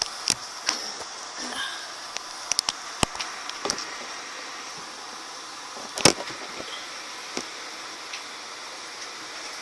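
Scattered light clicks and knocks of something being handled, the loudest about six seconds in, over a steady faint hiss.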